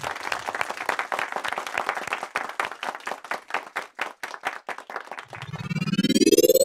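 Audience applauding, dense clapping that thins out after about five seconds. Near the end a music swell rising in pitch builds up.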